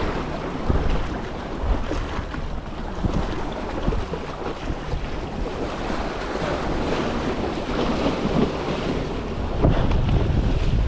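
Wind buffeting the microphone over the wash of sea waves, in gusts that grow stronger near the end.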